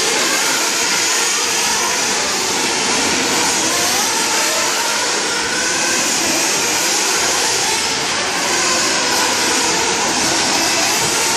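Small two-stroke nitro engines of several 1/4-scale RC buggies racing together, their high whines overlapping and rising and falling as the cars accelerate and slow through the corners.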